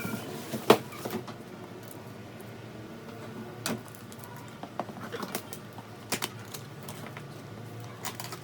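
Scattered knocks and clicks of hard plastic and cardboard being handled, as an air fryer and its packaging are unboxed, with a sharper knock under a second in.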